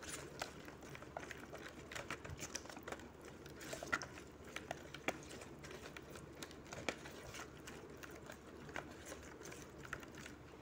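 Silicone-coated whisk stirring a runny egg-and-oil mixture in a plastic bowl: faint, irregular clicks and taps against the bowl, a few of them louder.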